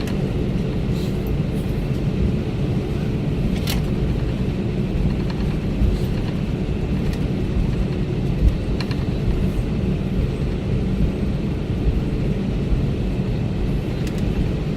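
Steady low rumble in the cabin of an Airbus A321neo taxiing after landing, its CFM LEAP-1A engines at idle, with a few faint clicks from the cabin.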